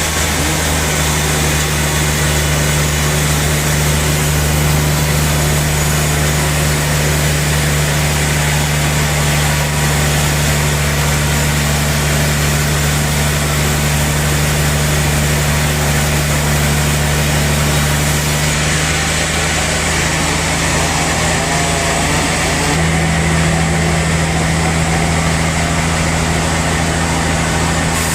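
Sawmill machinery running steadily: a constant low engine hum under a broad mechanical noise, which shifts slightly about 19 and 23 seconds in.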